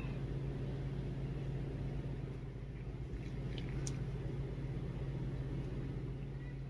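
A steady low hum with a rumble beneath it, and one faint short click about four seconds in.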